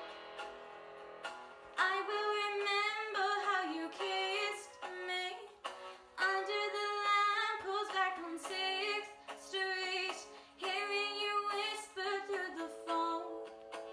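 A girl singing solo over instrumental accompaniment, with long held notes and vibrato.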